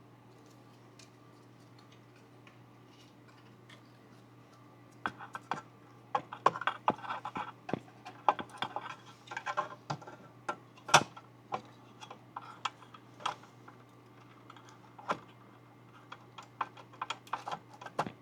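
Irregular clicks, taps and light clattering of hard metal and plastic computer parts being handled and fitted together by hand, starting about five seconds in and running in clusters, with one louder knock near the middle, over a faint steady hum.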